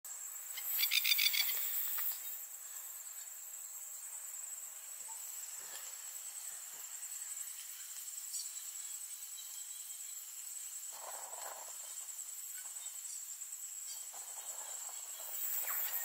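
Masked lapwing (spur-winged plover) giving a short burst of rapid, harsh, loud calls about a second in, with another call starting near the end. Insects trill steadily and high-pitched throughout.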